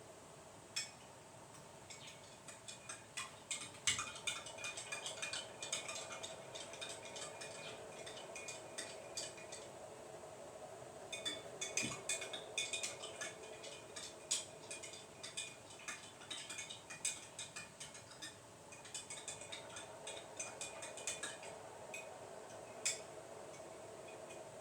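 Pet lovebirds busy in their cage: a steady patter of quick clicks, taps and light clinks in irregular bursts, with short high chirps among them, over a steady low hum.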